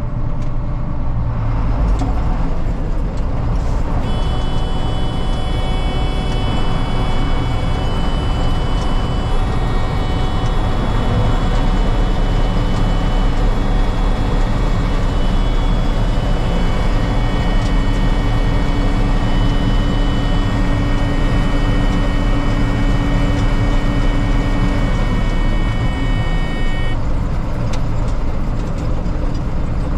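Combine running with the feederhouse and its conveyor chain engaged: a steady, loud mechanical running. From about four seconds in, a high buzzing tone sounds over it and stops a few seconds before the end. The buzz comes from a sensor that was left unplugged.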